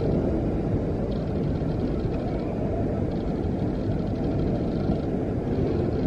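Water in a wave pool rushing and churning as artificial waves roll through and break, a steady low rumble.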